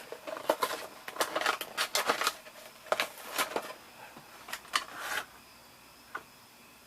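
Heroclix booster pack being handled and its plastic miniatures taken out: a quick run of crinkles and small plastic clicks and rattles that stops about five seconds in.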